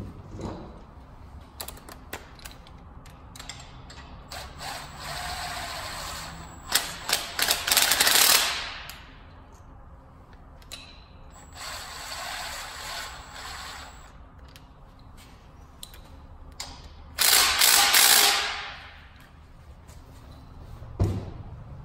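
Ratchet tightening the power steering pump's mounting bolts: scattered clicks, then three bursts of rapid ratcheting, each a couple of seconds long, the first and last loudest.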